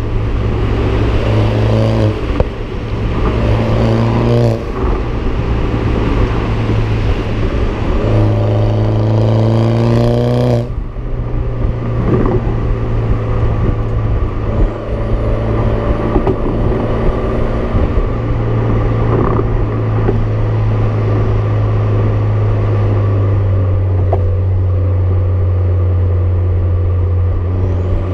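BMW F20 116i's exhaust through an aftermarket Supersprint system, heard at the rear bumper: the engine pulls up in pitch under acceleration three times in the first ten seconds, each pull cut off sharply at a gear change, then settles into a steady drone while cruising.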